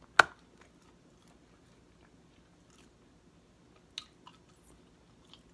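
Close-up mouth sounds of a man eating a slider: one sharp, loud smack just after the start, then faint chewing clicks, with another small click about four seconds in.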